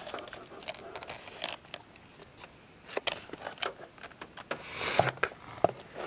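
Hard plastic fan housing and base being handled and tipped over: scattered light clicks and knocks, with a short scraping rub a little before five seconds in.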